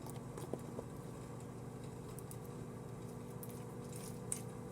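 Hands playing with a sticky clear slime, giving a few faint scattered clicks and crackles, over a steady low hum.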